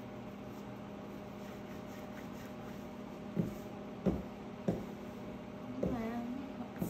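Steady appliance hum, with a handful of sharp knocks and pops in the second half while a wooden rolling pin rolls out pie dough on a granite counter.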